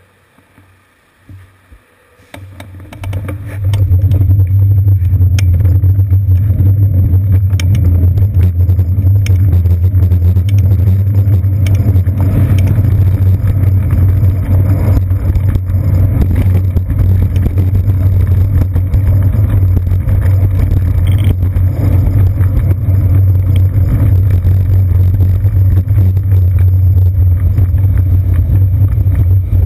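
Loud, steady low rumble of road vibration and wind on a bicycle's seat-post-mounted GoPro Hero 2 as the bike pulls away and rides on. It builds from fairly quiet about two to three seconds in.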